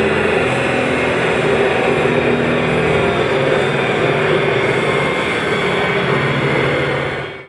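Renault Clio RS 197's 2.0-litre naturally aspirated four-cylinder engine running on a chassis dyno through a Supersprint full exhaust with no pre-cat or catalytic converter. It is held at fairly steady revs and fades out near the end.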